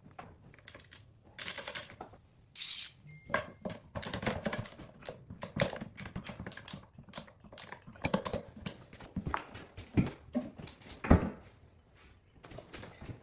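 Irregular clicks, taps and knocks of hand work on the wood and its fittings, with a short hiss about two and a half seconds in.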